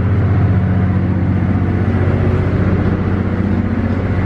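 Steady low rumble and hum of a moving passenger train, heard from inside a rail car.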